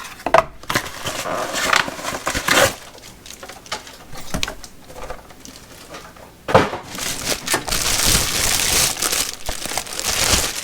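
Packaging of a power strip being opened by hand: crinkling and crackling as it is pulled apart, with clicks and scuffs, a quieter stretch in the middle, then a long stretch of dense crinkling from about six and a half seconds in.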